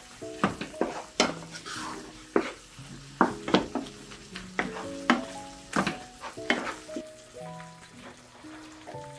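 Wooden spatula stirring a thick, simmering hayashi rice sauce in a frying pan: irregular scraping strokes against the pan about twice a second, with a light sizzle. Gentle background music with held notes plays under it.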